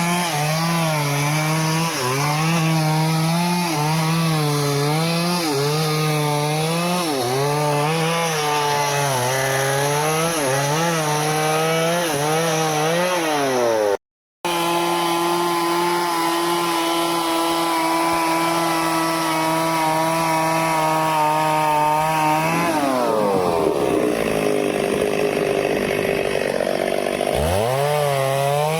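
Stihl two-stroke chainsaw cutting teak wood, the engine pitch wavering up and down as the chain loads and frees. After a brief break about halfway through it holds a steady high speed. Near the end its pitch drops away sharply and then climbs back.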